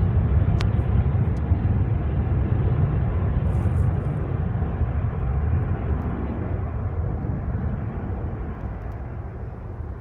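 Boeing 737-800 airliner's CFM56 turbofan engines at takeoff power: a low, steady jet rumble that slowly fades as the aircraft climbs away.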